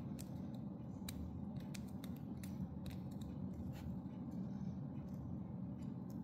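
Scattered light clicks and ticks from handling a USB-C charging cable and the plastic body of a pen-style rechargeable soldering iron as the plug is worked in its charging port, over a steady low hum.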